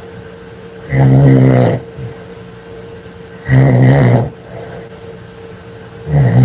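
Loud snoring: a low buzzing snore just under a second long, repeating about every two and a half seconds, three times, the last one near the end.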